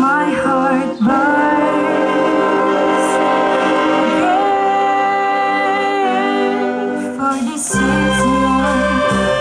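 Youth wind band of flutes, clarinets and saxophones playing long sustained chords while a girl sings into a microphone, her voice holding long notes above the band. Near the end, low bass notes and a steady beat come in.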